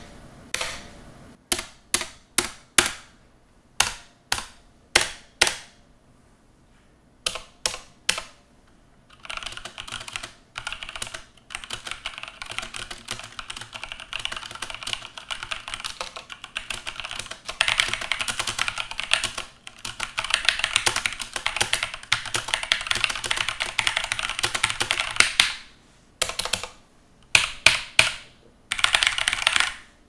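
Mechanical keyboard, an Ajazz AK33 fitted with Zealio tactile switches: for the first eight seconds or so, single keys are pressed one at a time, each click ringing briefly with spring ping. From about nine seconds in, fast continuous typing, with a short break near the end and a few separate strokes before typing resumes.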